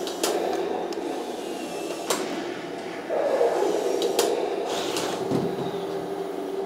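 Henglong RC Tiger I tank driving, its electric motors and gearbox whirring steadily with the tank's sound unit, getting louder about three seconds in, with a few sharp clicks.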